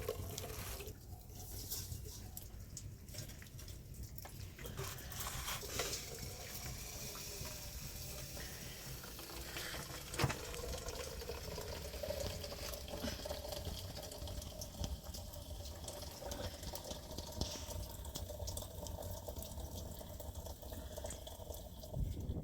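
Water running and splashing, with scattered small knocks and one sharper knock about ten seconds in.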